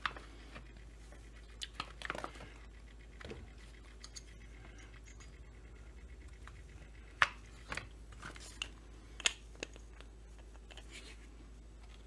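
Hands working a chainsaw's plastic tank housing and anti-vibration spring into place: scattered light clicks and knocks of plastic and metal parts, with two sharper clicks in the second half.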